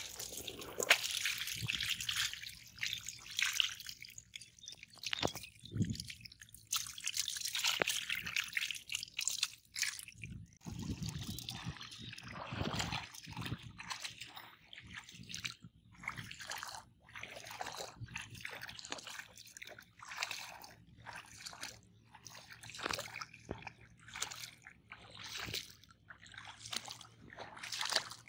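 Water splashing: first a dense, busy splashing as small live fish thrash in a wicker basket sitting in the water, then a person wading through shallow floodwater, with a slosh at each step about once a second.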